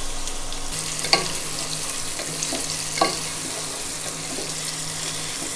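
Sliced onions sizzling in hot oil in a nonstick pot, stirred with a wooden spatula. There are two short knocks about one second and three seconds in.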